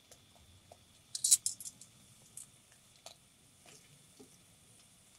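Metal tongs clicking and clinking against a small wire-rack grill and plates as food is laid on it: a quick run of sharp clinks about a second in, then scattered light ticks.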